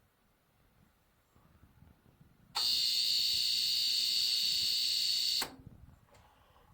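A loud, piercing electronic alarm beep, one steady high tone held for about three seconds. It starts a little over two and a half seconds in and cuts off suddenly.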